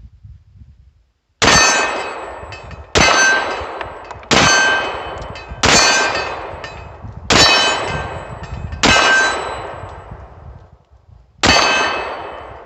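Seven 9mm pistol shots from a SCCY DVG-1, fired at an uneven pace with a longer pause before the last one. Each shot is followed by a long metallic ring that fades over about a second. The slide does not lock back after the final shot, which the shooter suspects is a magazine problem.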